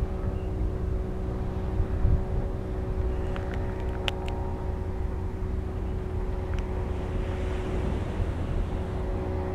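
Ship engines droning steadily across the harbour water: a low rumble with a hum of several steady tones. A few faint high ticks come about halfway through.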